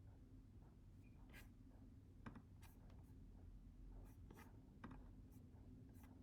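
Near silence: quiet room tone with a low hum and a scattering of faint, irregular clicks.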